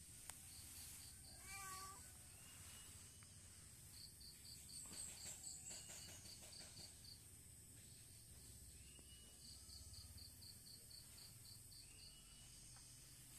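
A cat meows once, faintly, about a second and a half in. Insects chirp in rapid even pulses, about four a second, in runs that start and stop through the rest.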